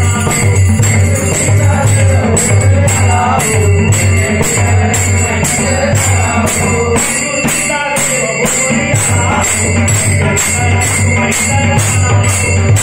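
A group of men singing a devotional bhajan together to the steady clash of small brass hand cymbals (taal), about two to three strokes a second, with hand-clapping. A low beat runs underneath and drops out for a moment past the middle.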